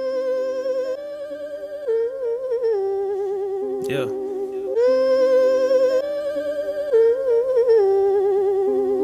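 Background music: a slow, wordless melody of long held notes with wide vibrato and small slides over sustained chords, with no beat. The phrase repeats about halfway through.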